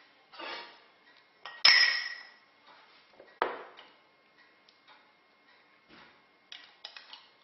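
A metal ladle and a glass jar clinking against each other and against a copper jam pan as jam is ladled into jars: scattered knocks and clicks. The loudest is a ringing clink about two seconds in, with another knock about a second and a half later.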